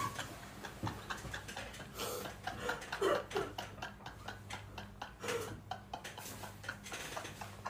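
A young man's quiet, mostly silent laughter, with a few short voiced bits and many faint irregular clicks.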